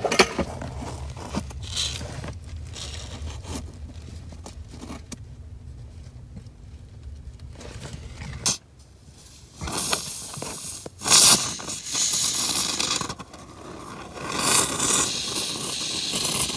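Great Stuff Gaps & Cracks spray foam hissing out of its aerosol can through the straw in several bursts, starting about ten seconds in, as the gaps around a foam-board rim joist insert are sealed. Before that, rubbing and small knocks of handling.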